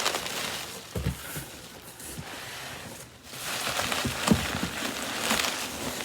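Hands digging through a box of foam packing peanuts: a dense rustling clatter of light pieces, with a couple of soft knocks against the box.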